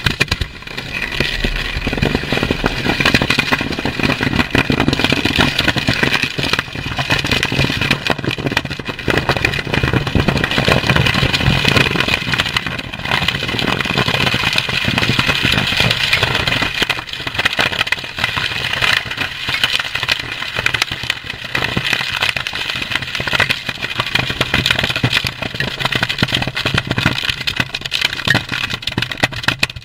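A pile of ammunition, including 20 mm and 5.56 NATO cartridges, cooking off in a disposal burn. It makes a loud, continuous rush of burning packed with dense crackling and popping. The noise surges about half a second in and stays loud.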